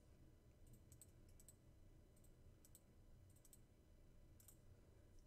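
Faint computer mouse clicks, about six, several in quick pairs, over a low steady hum.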